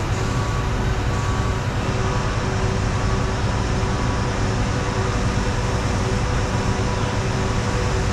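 Heavy diesel engine of a mobile crane running steadily under load as it lowers a piece of the tower crane, with a steady whine over a deep rumble.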